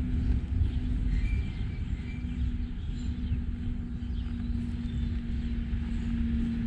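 A steady engine hum over a low rumble, with a few short bird chirps about a second or two in.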